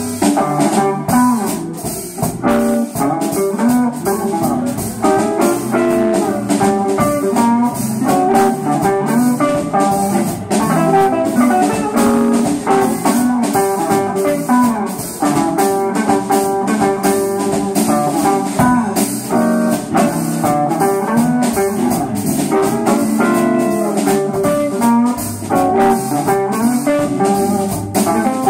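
Live band playing an instrumental number: electric guitar lines over bass guitar and a drum kit keeping a steady beat.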